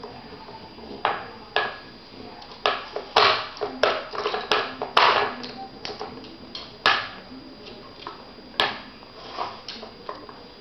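Hard plastic cups knocking and clacking in the holes of a wooden dog puzzle board as a French bulldog noses and pushes at them: irregular sharp knocks, thickest a few seconds in, with single knocks before and after.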